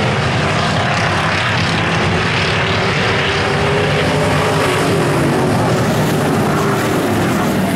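Several dirt-track stock car engines racing around the oval, a loud steady drone whose pitch wavers up and down as the cars pass.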